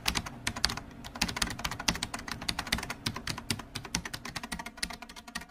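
Typing sound effect: rapid computer-keyboard keystroke clicks, several a second, that stop abruptly at the end.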